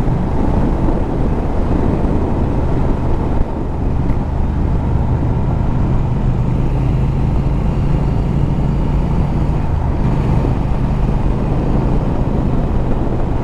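Triumph Speed Twin motorcycle's parallel-twin engine running at a steady cruise while riding, with road noise.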